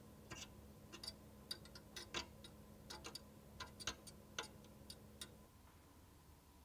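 Miniature wire whisk stirring in a tiny metal saucepan, its wires ticking irregularly against the metal as sugar and agar are whisked into the liquid. The clicks stop about five seconds in.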